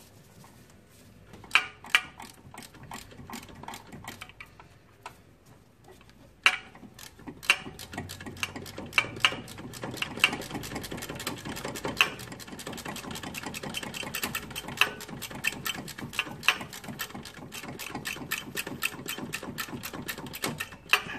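Hand ratchet with a 14 mm socket clicking in rapid strokes as it runs an alternator mounting bolt in until snug. A few sharp clicks at first, then dense, quick clicking from about six seconds in, with a few louder knocks.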